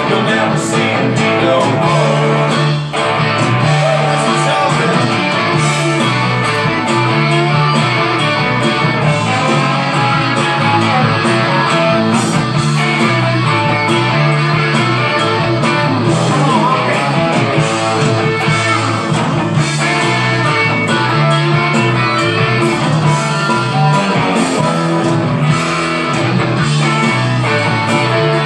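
Stratocaster-style electric guitar played over a full rock band backing track with a steady bass line, in an instrumental stretch of the song.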